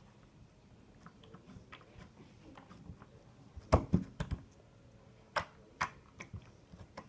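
Slime being squeezed and stretched in the hands, giving off sharp sticky clicks and air pops: a few small ones at first, a loud cluster about four seconds in, then single clicks every half second or so.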